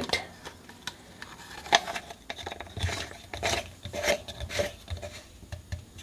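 Plastic washing machine drain pump being handled and turned by hand: scattered clicks, light knocks and rubbing of the plastic housing and filter cap, with a sharp click about as the handling begins.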